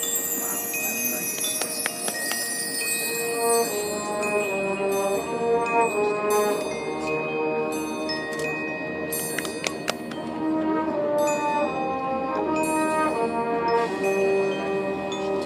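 Drum and bugle corps horn line playing sustained brass chords that change every second or so, over ringing mallet percussion from the front ensemble.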